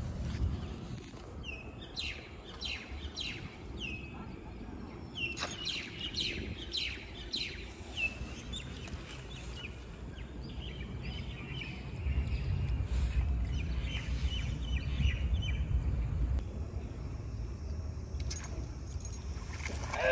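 Small birds chirping in a series of quick downward-sweeping calls, dense in the first half and more scattered later. Past the middle, a low rumbling noise rises beneath them and becomes the loudest sound.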